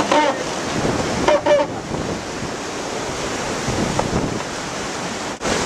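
Wind buffeting the microphone and water rushing along the hull of a Swan 45 racing yacht planing fast downwind in rough sea. Two brief higher-pitched sounds come in the first second and a half.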